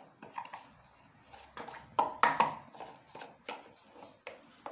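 A metal spoon tapping and clinking against an aluminium cooking pot as powdered spices are added: a string of short, sharp, ringing taps, with the loudest few about halfway through.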